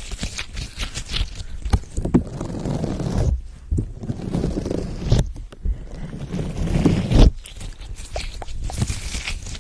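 Close-up ASMR rubbing: hands work a small purple textured object against the microphone grille in three long rubbing passes, with soft knocks from handling the mic.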